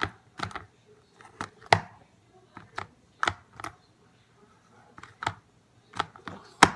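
Sticky homemade slime being squeezed and pulled in the hands, making irregular sharp clicks and pops a few times a second.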